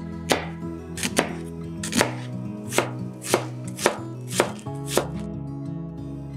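Chef's knife chopping a red onion on a cutting board: about nine sharp knife strikes, roughly every half second, stopping about five seconds in.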